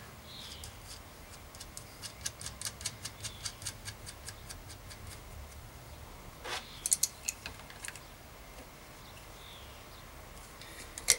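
A run of light, even metallic ticks, about five a second, as the lock nut is spun by hand down the axle of a Sturmey-Archer AW three-speed hub's internals. A few sharper metal clicks follow, then a single click near the end as an adjustable wrench goes onto the nut.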